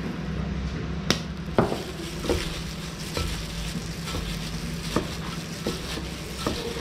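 Kitchen sounds: a steady sizzling hiss of food frying, with a utensil clinking sharply against cookware about six times.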